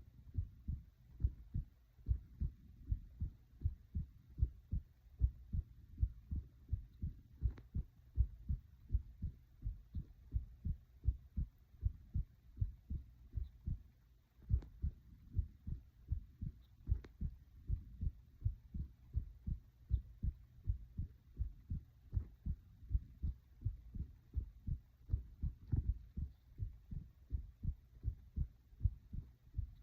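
A human heart beating: a steady, even rhythm of low thumps, with a few faint clicks now and then.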